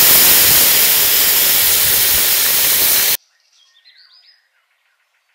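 Tamarind water boiling hard in hot oil in an iron wok, a loud steady sizzling hiss that cuts off suddenly about three seconds in, followed by a few faint bird chirps.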